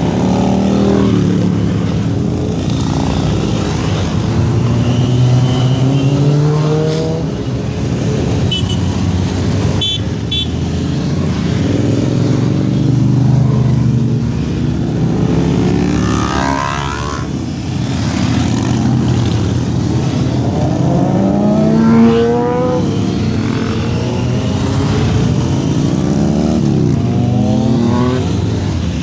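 A continuous stream of motorcycles riding past one after another, many engines running at once with rising revs as each bike accelerates by. The loudest rise comes about twenty-two seconds in.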